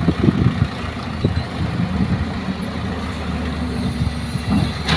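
Diesel engines of dump trucks and an excavator running, a steady low hum with uneven rumbles near the start and again near the end.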